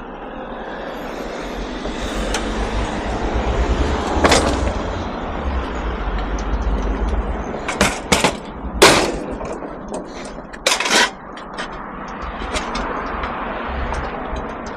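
Scrap being handled: a run of loud bangs and metallic clattering, the sharpest clustered in the middle, then lighter knocks, over a steady low rumble.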